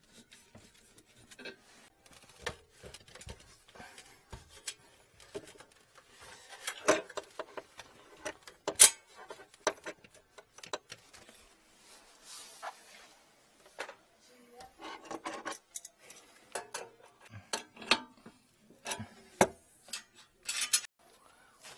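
Scattered metallic clinks, knocks and rubbing as gloved hands and hand tools work the brass pipe fittings of a heating manifold, with one sharp knock about nine seconds in and a quick cluster of clinks near the end.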